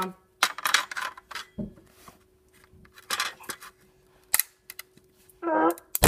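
Handling noise: irregular sharp clicks and taps of small kitchen items, with a short grunt near the end.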